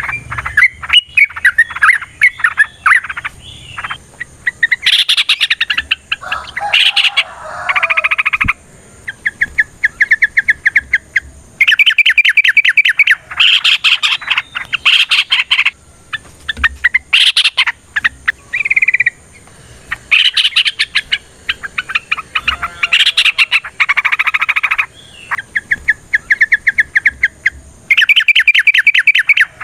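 Yellow-vented bulbul (trucukan) song: loud, bubbly phrases and long, rapid rolling trills of evenly spaced notes, repeated in bursts of a second or two with short pauses between.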